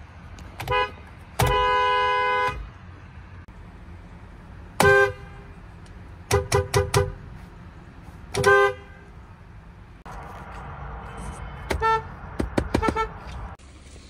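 Car horns of several cars in turn, including a Honda Accord and a Honda Odyssey, each a dual-tone chord sounded by a press on the steering-wheel pad. They come as single short beeps, one honk held for about a second near the start, and two runs of quick taps, three or four in a row, about halfway and near the end.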